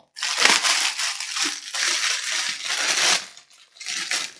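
Plastic mailing package being torn open by hand: bursts of crinkling and ripping, pausing briefly about three and a half seconds in before more rustling near the end.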